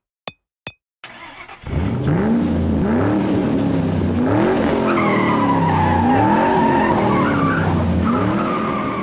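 Intro sound effect of a car engine revving up and down over and over, with tires squealing from about halfway through. Three quick clicks come just before it.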